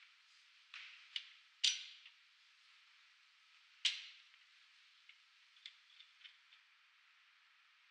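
Metal clicks and knocks from the steel jaws and arms of a hydraulic spring compressor being set by hand against a car's coil spring: a few sharp knocks in the first two seconds, a stronger one about four seconds in, then several lighter ticks.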